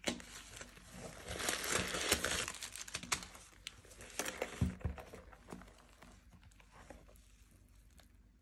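Paper stuffing crinkling and rustling as it is pulled out of a new leather handbag, with small clicks and taps. It is busiest for the first five seconds or so, then dies down to a few faint clicks.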